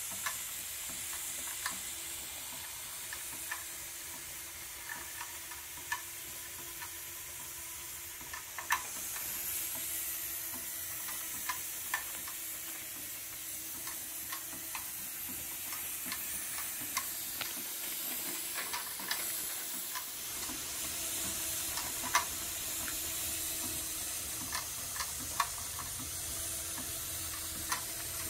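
Wilesco D20 model steam engine hissing steam, with irregular crackling pops and spits. A faint steady hum joins about a third of the way in.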